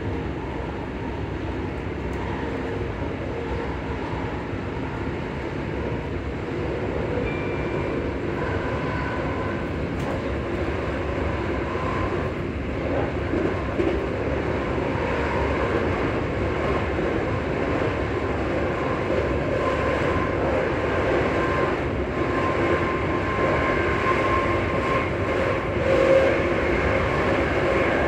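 Class 334 electric multiple unit heard from inside the passenger saloon while running: a steady rumble of wheels and running gear with faint whining tones from the traction equipment that come and go and change pitch. It grows gradually louder.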